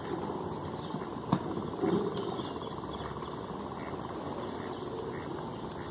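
Steady open-air background noise with faint short chirps, and a single sharp knock about a second and a half in.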